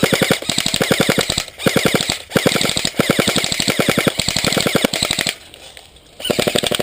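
Airsoft gun firing on full auto: rapid, evenly spaced shots in several bursts. There are short breaks around a second and a half and around two seconds in, a long burst that stops after about five seconds, and a last short burst near the end.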